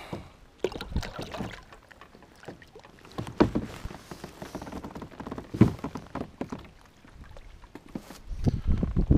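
Water splashing and sloshing with scattered knocks against a plastic kayak hull, a louder rushing sound building near the end.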